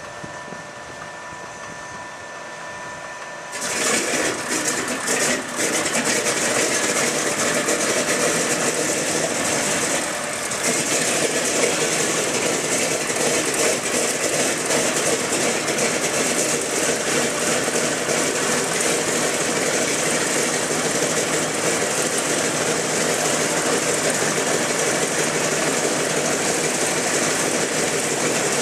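A B-17G Flying Fortress's Wright R-1820 Cyclone radial engine starting. A steady whine is followed, about four seconds in, by the engine catching, running unevenly for a second or two and then settling into a loud, steady run.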